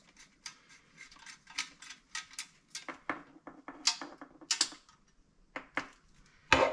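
Nut driver turning two small nuts onto the bathroom fan motor's studs on a metal mounting plate: irregular small metallic clicks and scrapes.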